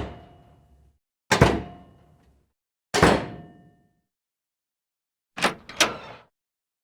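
A door shutting with sharp thuds, each ringing out briefly: two single hits about a second and a half apart, then a quick double knock of the door and its latch near the end.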